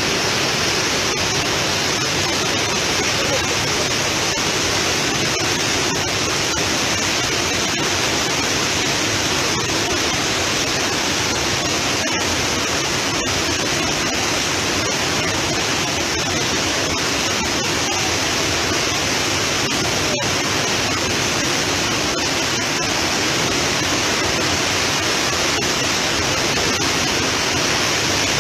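Flash-flood torrent of muddy water pouring over a waterfall: a loud, steady rushing of churning floodwater.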